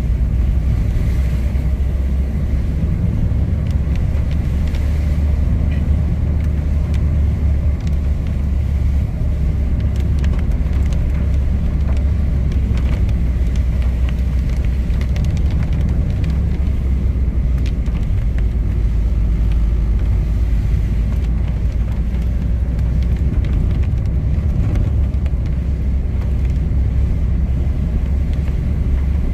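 A car's engine and tyres heard from inside the cabin while driving on a wet road: a steady low rumble.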